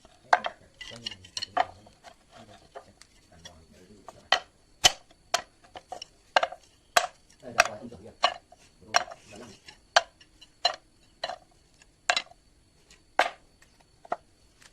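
A series of sharp, irregular taps and clicks, about one to two a second, each with a brief ring.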